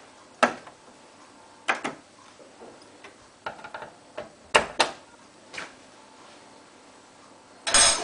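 Hotpoint Ultima WT960 front-loading washing machine with its door open: a few sharp clicks and knocks as the door swings open and the wet towels in the steel drum are handled. Near the end the machine starts up suddenly and the drum begins to turn.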